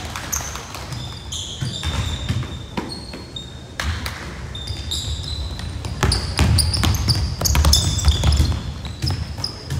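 Basketball being dribbled on a hardwood gym floor, with repeated bounces and short high squeaks from sneakers on the court. The squeaks come thickest in the last few seconds.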